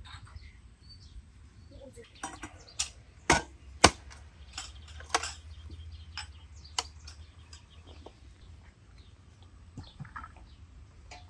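Irregular clinks and knocks of tableware, with two sharp loud ones about three and four seconds in and lighter ticks scattered through the rest.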